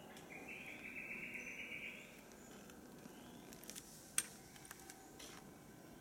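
Rainforest wildlife calling: a high chirping trill lasts about two seconds near the start, among short rising chirps that repeat. There are a few sharp clicks, the loudest about four seconds in.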